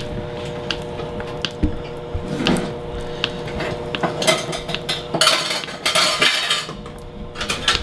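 Kitchen knife cutting cold butter into cubes on a plastic cutting board: a string of irregular light clicks and taps as the blade hits the board, with longer scraping stretches a little past the middle, over a steady background hum.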